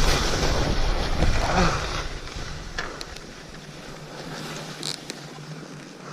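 Skis hissing over snow with wind rushing across the microphone, loud at first and easing off after about two seconds to a quieter steady hiss.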